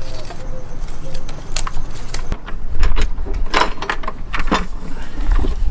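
Scattered metallic clicks and clinks of hand tools and engine parts being handled, with a few dull low thumps.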